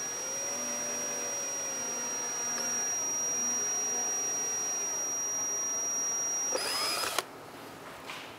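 Electric drill boring through a snowmobile's plastic body panel and vent insert, its motor giving a steady high whine. About six and a half seconds in the pitch changes briefly, and the drill stops just after seven seconds.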